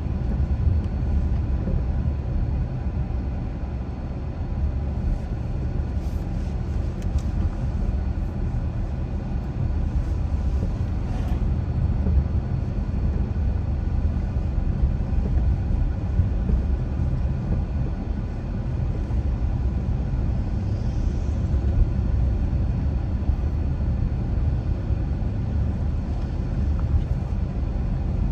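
Car driving at a steady pace, with a continuous low rumble of tyres on the road and the engine.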